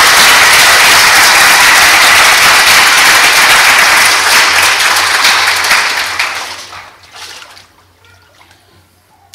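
Congregation applauding, the clapping fading away between about five and seven seconds in.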